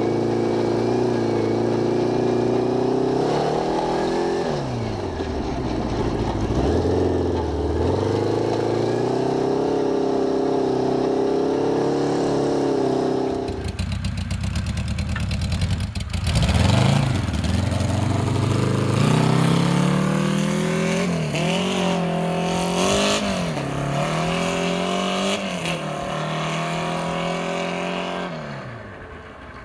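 Homemade buggy's 1000cc Honda Gold Wing four-cylinder engine running and revving up and down repeatedly as it is driven. About halfway through a hissy noise joins it briefly. Near the end the engine fades as the buggy drives away.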